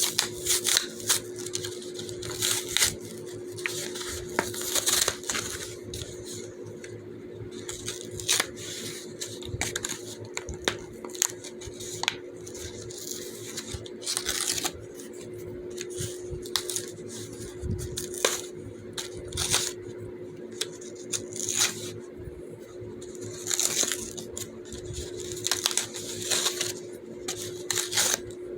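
Fidget toys being handled and played with: irregular clicks, taps and crinkly rustles, over a steady low hum.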